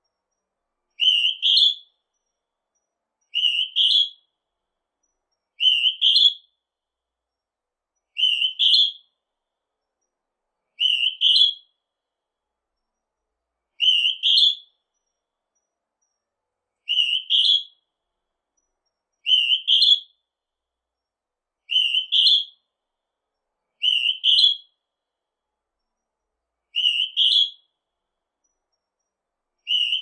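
Northern hawk-cuckoo calling: a shrill two-note whistle, the second note higher, repeated about a dozen times, one call every two to three seconds.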